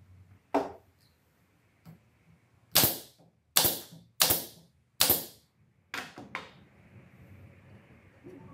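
Pneumatic brad nailer firing four times into the wood, a sharp crack with a short hiss of air each time, under a second apart. A lighter knock comes before the shots and two quieter clunks after.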